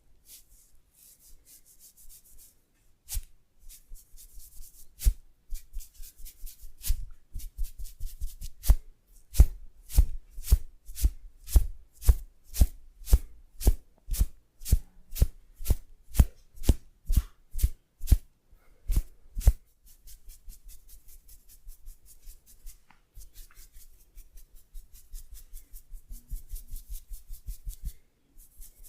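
Massage percussion: a steady run of slapping or tapping strikes on the body, about two a second, with a dull thud in each. About two-thirds of the way through they give way to quicker, lighter tapping and rubbing.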